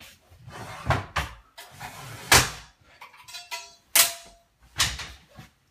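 Wooden slatted futon frame being folded up by hand: about five sharp wooden knocks and clacks as the hinged sections are lifted and swung into place, the loudest about two and four seconds in, with a brief squeak between them.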